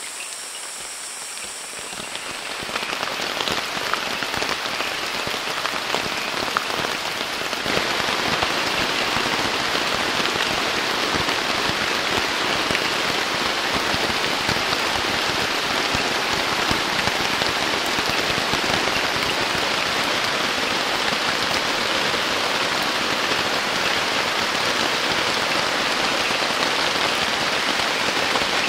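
Heavy tropical rain pouring down, growing heavier about three seconds in and again about eight seconds in, then falling as a steady downpour.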